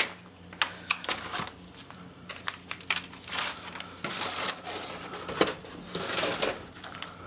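Thin black plastic seedling cell packs being handled and set into a tray: irregular crinkling of the flexible plastic with light clicks and knocks.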